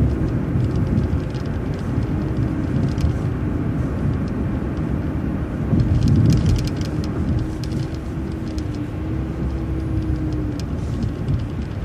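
City transit bus driving, heard from inside: engine and road rumble with a steady whine, a few small rattles, and a louder swell of rumble about six seconds in.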